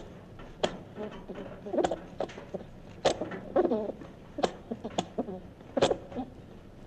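Recording of a dormouse calling: sharp clicks, each followed by a brief wavering squeaky call, repeating irregularly about ten times.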